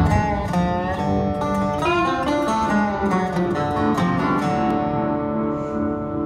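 Outro music led by plucked guitar, with some notes bending in pitch. It thins out and begins to fade near the end.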